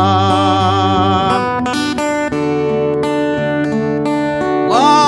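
Portuguese-language gospel hymn with strummed acoustic guitar. A sung note held with vibrato ends about a second and a half in, the guitar carries on alone, and the voice comes back near the end.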